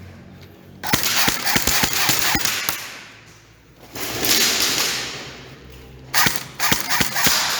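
Airsoft guns firing, sharp snapping shots in two irregular bursts, one about a second in and another near the end, with a short rush of noise in between.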